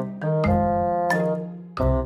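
Background music played on keyboard, its chords changing every half second or so, with a brief dip in loudness near the end.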